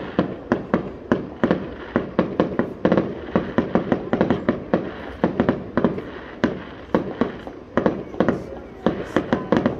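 Fireworks display: a rapid, unbroken barrage of bangs, several reports a second over a continuous rumble.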